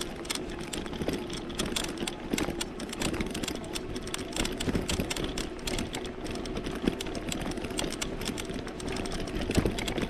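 Electric bike riding over a bumpy sandy trail: a steady motor whine under continual rattling and ticking from the bike over the rough ground.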